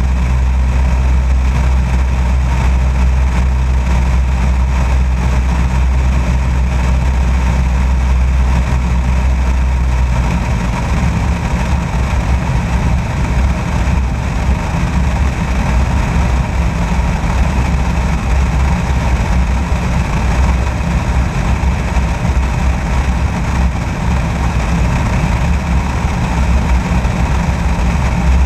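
Light aircraft's piston engine droning steadily in flight, mixed with airflow noise over an outside-mounted camera. About ten seconds in the steady low hum turns rough and fluttering, like wind buffeting the microphone.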